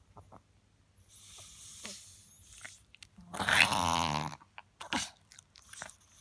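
Chihuahua reverse sneezing: forceful inhalations through the nose. A hissing intake of air comes first, then about three seconds in a loud, pitched snort lasting about a second, and then two short snorts.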